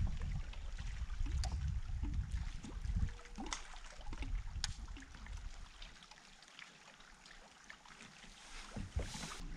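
Water lapping and trickling against a small fishing boat, with a low rumble that fades about three and a half seconds in and a few light clicks.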